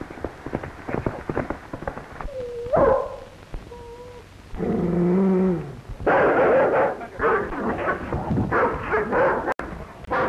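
A dog barking and snarling as it attacks and grapples with a man, with a few short pitched cries midway. The snarling turns dense and loud over the last four seconds.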